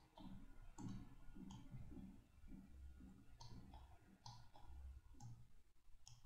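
Faint computer mouse clicks, a scattered few about a second apart, over a low hum.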